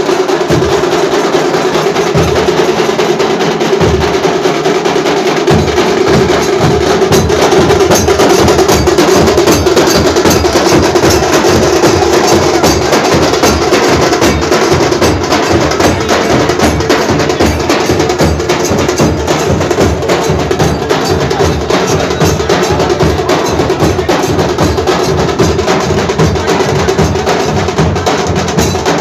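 Drums beaten fast and loud in a dense, unbroken rhythm, with a steady droning tone beneath.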